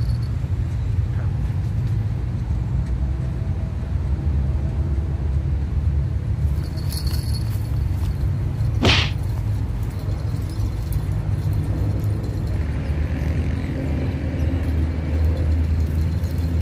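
Steady low rumble of road traffic, with a single brief sharp click about nine seconds in.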